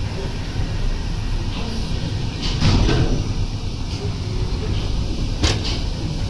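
PS Waverley's paddle wheel churning the sea, heard from inside the hull at a porthole: a steady low rumble with rushing swishes about two and a half seconds in and again near the end.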